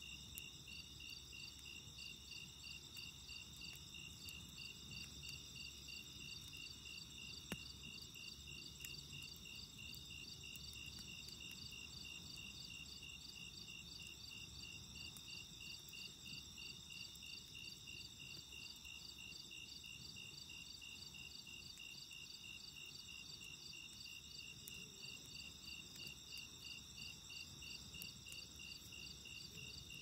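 A chorus of crickets trilling steadily in fast, even pulses at several high pitches, over the faint low crackle of a wood campfire, with one sharp pop about seven and a half seconds in.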